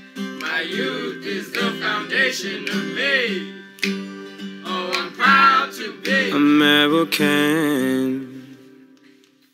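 Music: a song with acoustic guitar and a singing voice, fading out near the end.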